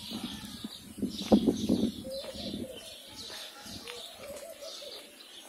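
Doves cooing in low, wavering phrases from about two seconds in, over repeated high chirps of small birds. A few loud scuffing footsteps on the path come about a second in.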